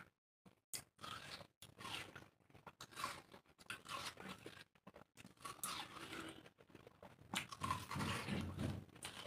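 Two people biting into and chewing slices of watermelon: irregular bites and chewing of the wet flesh, after a brief pause at the start, getting louder near the end.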